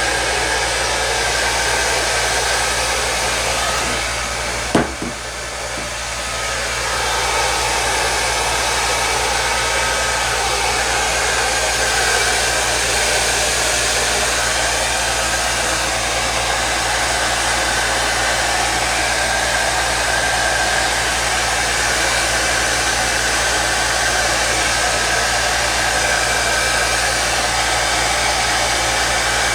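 Electric heat gun blowing steadily while shrinking iron-on plastic covering film taut on a balsa wing to pull out wrinkles. A single sharp knock comes about five seconds in, and the blowing dips briefly around it.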